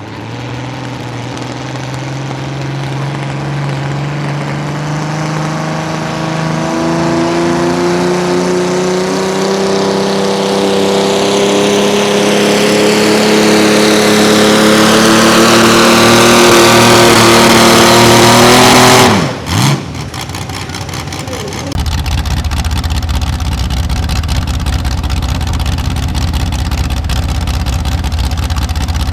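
Mini rod pulling tractor's engine at full throttle on a pull, its pitch climbing steadily and growing louder for about nineteen seconds, then cut off abruptly. After a brief gap, a steady, lower engine sound follows.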